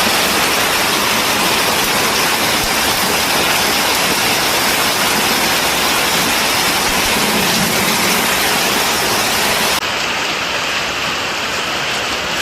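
Heavy downpour of storm rain, a dense steady hiss. About ten seconds in it changes abruptly to a slightly quieter, duller hiss without the highest tones.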